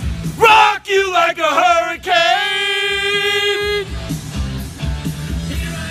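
1980s hard rock song playing loud, with a male singer belting a short phrase and then holding one long high note, over a steady drum and bass beat.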